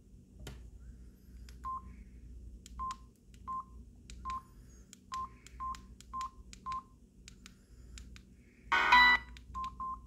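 Samsung SGH-D600 mobile phone keypad being pressed: soft key clicks, each followed by a short single-pitch beep, about eight times at uneven intervals. Near the end comes a brief, louder burst of tone, then two more quick beeps.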